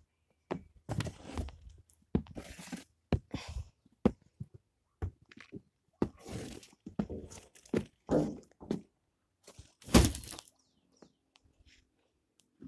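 Irregular knocks, thumps and rustling close to the microphone: handling noise of the phone rubbing and bumping against a fleece jacket while its holder moves about. One knock about ten seconds in is the loudest.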